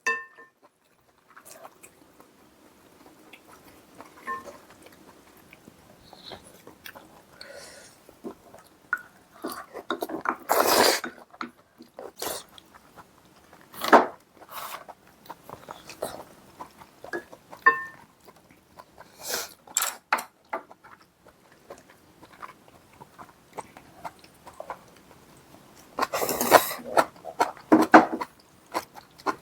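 Close-up eating sounds: chewing and biting, with occasional short clinks of utensils against dishes. The sounds come in scattered bursts, and two louder stretches fall about ten seconds in and near the end.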